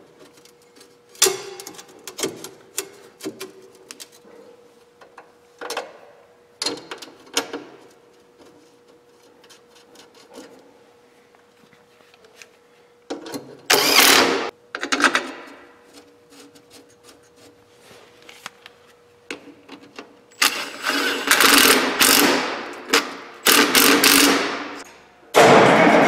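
Sheet-metal battery covers clank into place, then a cordless impact driver runs in loud bursts, hammering the cover bolts down, first a couple of times about halfway through and then in a run of bursts near the end.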